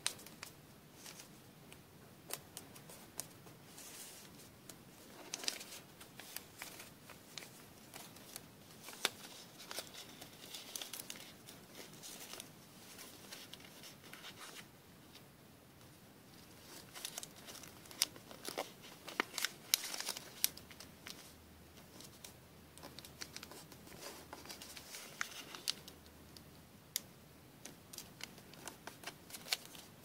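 Origami paper being folded and creased by hand: irregular rustling and crinkling with many short, sharp crackles as flaps are pressed flat.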